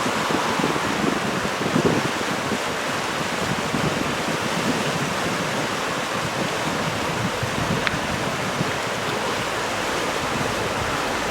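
Steady rain falling, a continuous even hiss, with low rumbles of wind on the microphone.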